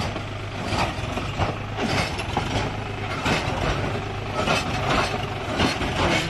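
John Deere 5045D tractor's three-cylinder diesel engine running steadily at low speed as it pulls slowly away, with irregular knocks and clatters over the engine.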